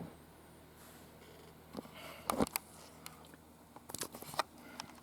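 Handling noise: a few sharp clicks and knocks, one right at the start, a cluster about two seconds in and more around four seconds, over faint room tone.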